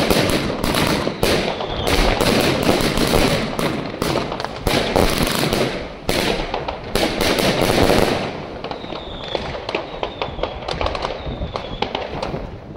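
Raptor Princess, a 100-shot 25 mm compound fireworks cake, firing rapidly: launches and breaks follow close on one another, with crackling strobes. The shots stop about eight seconds in, and scattered pops and crackles follow.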